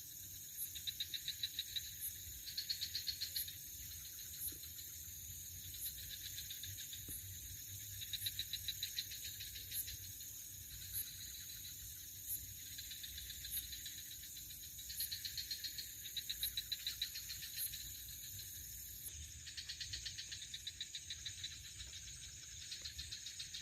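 Night insect chorus: crickets trilling in repeated bursts of about a second over a steady high-pitched hum.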